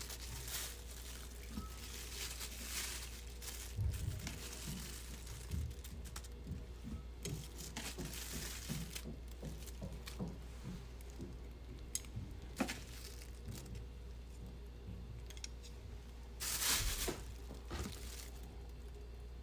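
Plastic bag crinkling as dressed green pepper strips are tipped out, then wooden chopsticks tapping and scraping against a ceramic bowl as the peppers are tossed, with a louder rustle near the end.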